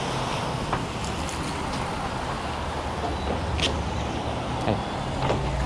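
A small community shuttle bus pulls up and runs at the stop with a low engine rumble over street traffic noise, with a few short squeaks and clicks, and its front doors open.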